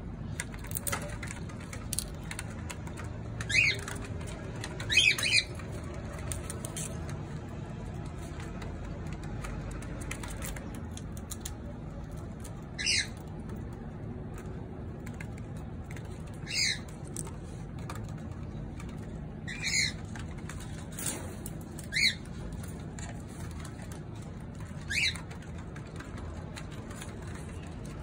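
Cockatiels giving short, sharp calls, about eight in all, each under half a second and spaced a few seconds apart, with a few faint clicks in between.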